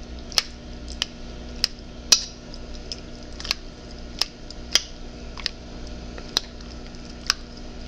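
A spoon clinking against a bowl while stirring refried beans and water smooth: sharp, irregular clicks about once or twice a second, over a steady low hum.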